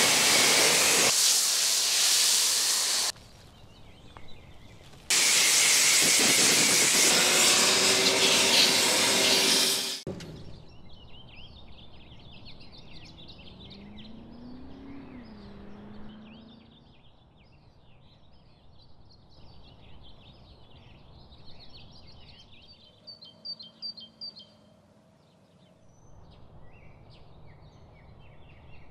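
Pressure washer spraying in two long loud hissing bursts with a short break between, stopping abruptly about ten seconds in. After that, birds chirping steadily.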